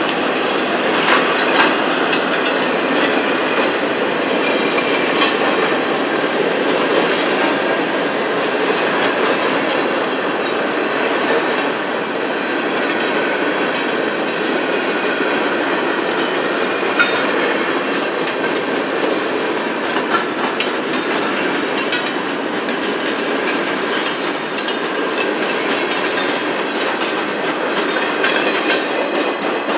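Freight cars of a Norfolk Southern work train, gondolas and boxcars, rolling steadily past at close range: a continuous clatter of steel wheels on rail with a few sharper clanks.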